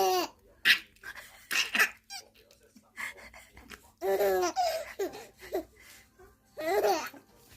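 High-pitched laughter in a string of short bursts with pauses between.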